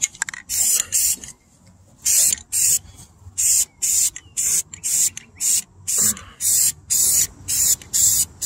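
Aerosol spray-paint can hissing in short bursts, about two a second, as the nozzle is pressed in quick passes, with a pause about a second in.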